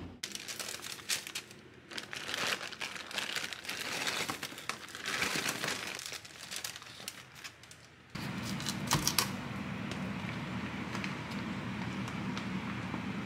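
Paper bag and wrapping paper crinkling and rustling as fried onion rings are unwrapped. About eight seconds in this gives way to a steady low hum, with a few sharp clicks just after.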